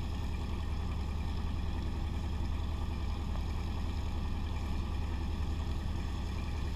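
A small wooden boat's motor running at a steady speed, heard from on board as the boat moves along: an even, low hum that does not change.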